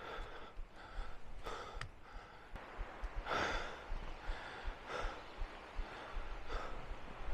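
A man breathing hard, panting in and out about once a second, out of breath from a steep climb up boulders; the loudest breath comes about three seconds in.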